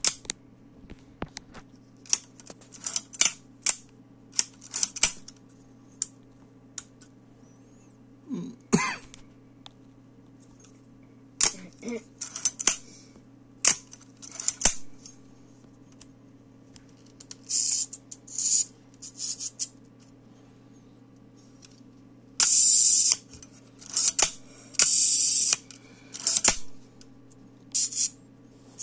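FED-4 rangefinder camera's cloth focal-plane shutter being wound and released over and over with the back open: a run of sharp mechanical clicks and several short ratcheting winds.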